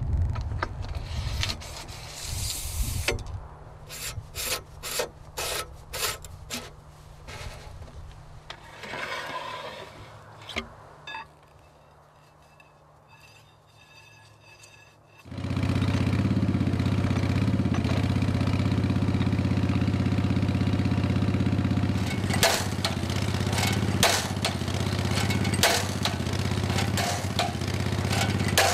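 Dando Terrier drilling rig: scattered clanks and knocks of steel rods and sample tubes being handled. About halfway through, the rig's engine starts abruptly and runs steadily. Later, hammer blows on the anvil knock repeatedly over the engine, driving the rods.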